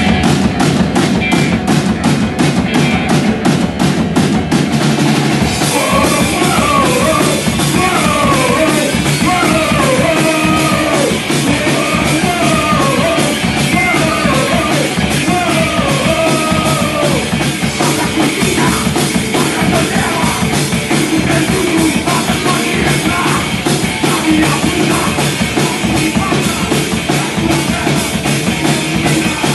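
Fast, loud punk rock song with drums, distorted guitar and bass; shouted or sung vocals come in about six seconds in.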